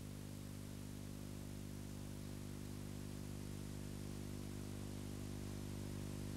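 Steady low electrical hum with hiss on an old videotape soundtrack, with no music or speech.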